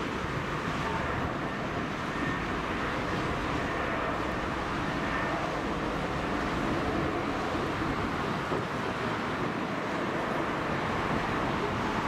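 Steady jet roar of a Boeing 777-200ER's two engines at taxi power, mixed with wind on the microphone.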